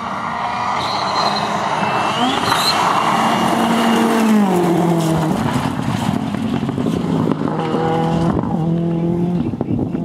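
Ford Fiesta R5 rally car's turbocharged four-cylinder engine at hard throttle on gravel as the car passes close by. It grows louder to about four seconds in, then the pitch drops as it pulls away. The tone steps up and down again near the end as it shifts gears in the distance.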